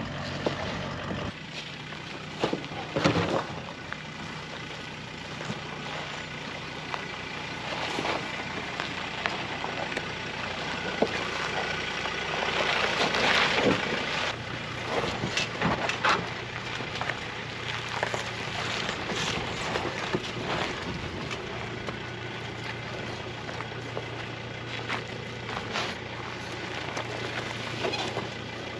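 Four-wheel-drive vehicles crawling slowly over a rocky dirt track: a low, steady engine note with tyres crunching over rock and gravel and scattered knocks throughout.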